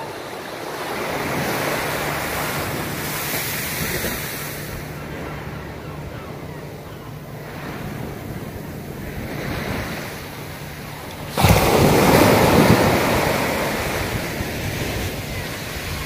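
Small waves breaking and washing up a sandy beach, rising and falling in slow swells. About two-thirds of the way through, a sudden louder wash comes in and then fades.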